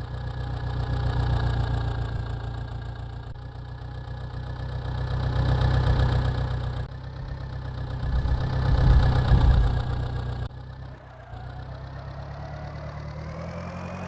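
A vehicle engine idling steadily, swelling louder three times, then dropping abruptly to a quieter level about ten and a half seconds in.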